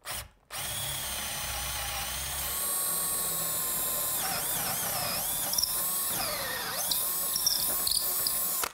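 Cordless drill boring into the end grain of a wooden handrail. It runs steadily, with the pitch wavering as the bit loads up and clears, then stops suddenly.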